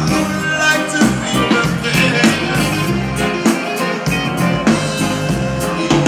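Live reggae band playing: drum kit, bass, electric guitar and keyboards, with a steady beat.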